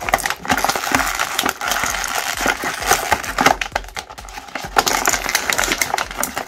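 Clear plastic blister tray crackling and crinkling in a rapid run of sharp clicks as hands flex and squeeze it to work a small figure out.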